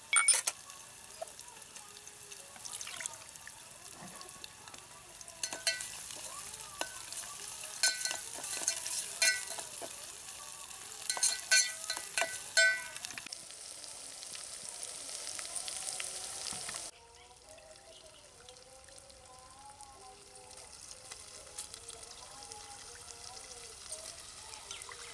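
Steel spoon and utensils clinking and scraping against steel cooking pots, with a run of sharp ringing clinks in the middle, over a steady hiss. The hiss cuts off abruptly about two-thirds of the way through, leaving quieter, fainter sounds.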